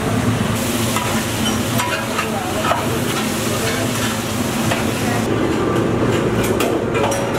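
A long metal ladle stirring vegetables and liquid in a large aluminium cooking pot, with scattered scrapes and clinks of metal against the pot, over a steady low hum.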